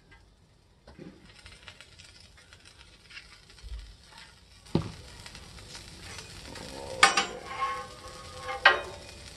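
Corn-tortilla taco frying on a hot Blackstone steel flat-top griddle, sizzling and slowly getting louder. A sharp knock about halfway through, then a metal spatula clanks and scrapes on the griddle twice near the end, ringing briefly.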